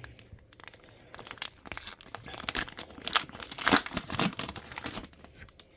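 Pokémon TCG booster pack's foil wrapper crinkling and tearing as it is opened by hand, in a rapid, irregular run of crackles that thins out near the end.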